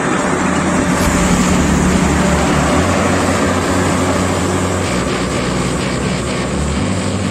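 Diesel engine of a Champion motor grader running loud and steady, its low drone shifting slightly in pitch a few times.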